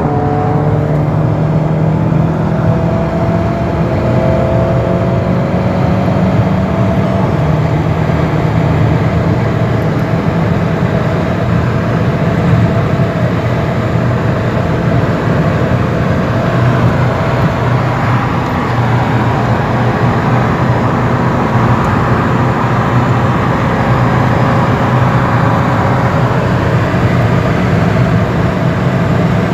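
Tuned Volkswagen Golf 7 R's turbocharged 2.0-litre four-cylinder engine running under way with tyre and road noise, its pitch climbing in the first few seconds and then holding steady at speed.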